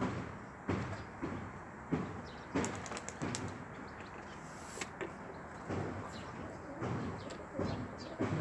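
Domestic pigeons cooing, low calls repeating about once or twice a second, with a few sharp clicks around the middle.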